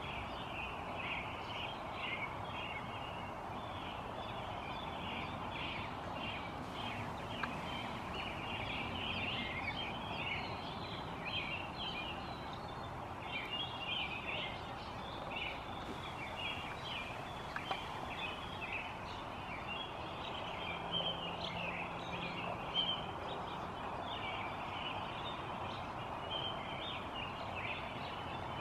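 Many birds chirping and singing at once, a constant overlapping stream of short high notes, over a steady background hiss of outdoor noise.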